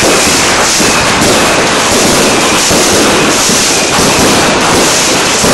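Many fireworks and firecrackers going off at once, close by: a loud, unbroken barrage of crackling and bangs with no pauses between them.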